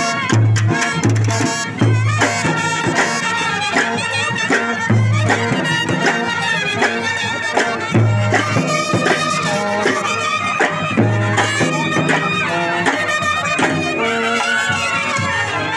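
Loud brass band playing: trumpets and other brass carry a melody over snare drums and repeated heavy bass-drum beats.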